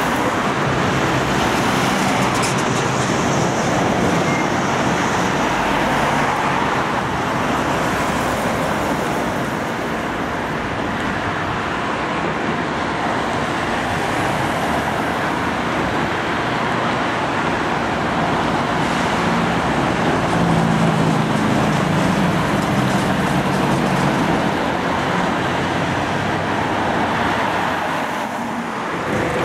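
Steady road traffic noise: cars and a van driving past on the street, a constant tyre-and-engine rush that dips briefly near the end.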